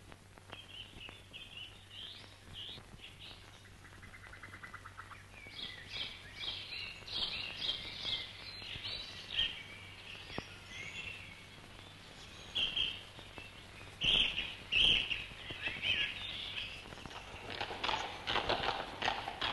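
Dawn chorus of songbirds: many short chirps and song phrases overlapping, with a fast trill about four seconds in. Near the end a clatter of horse hooves begins.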